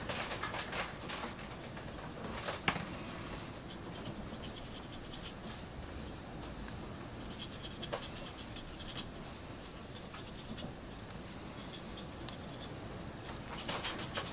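Light scratching of a paintbrush working oil paint along the panel lines of a plastic model part, in bunches of short strokes near the start and again near the end, with one sharp click about 2.7 seconds in.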